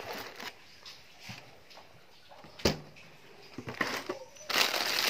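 Clear plastic bags being handled: faint rustles and small clicks, a single sharp knock about two and a half seconds in, then plastic crinkling steadily near the end.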